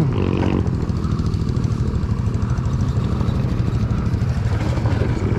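Yamaha Raptor 700R ATV's single-cylinder engine idling steadily.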